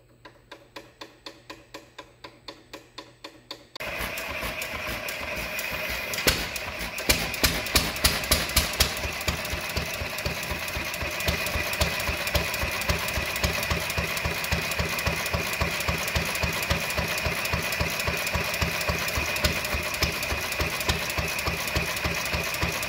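Antique stationary gasoline engine, just primed by its hand-pumped fuel pump, running with a steady beat of about five pulses a second. It gets louder over the first few seconds and jumps suddenly louder about four seconds in. A run of sharper, louder strokes follows a few seconds later before it settles into steady running.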